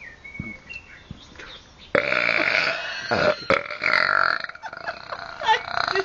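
A man's long, loud belch, forced out on purpose, starting about two seconds in and drawn out for about four seconds.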